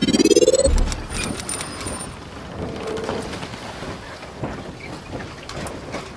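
Intro sound effects for a channel logo: a rising whoosh that ends in a low boom about a second in, then a crackling, rain-like hiss.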